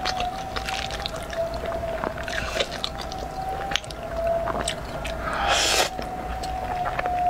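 Close-up eating sounds: wet chewing clicks, then a noisy slurp of instant noodles about five seconds in. A steady, slightly wavering whine runs underneath throughout.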